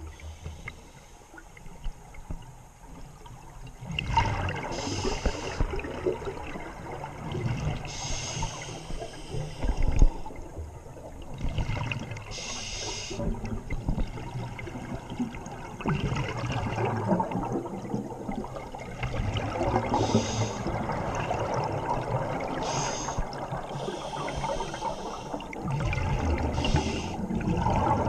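A scuba diver breathing underwater through a regulator. Every few seconds there is a short hiss of an inhaled breath, and between breaths the gurgling rush of exhaled bubbles.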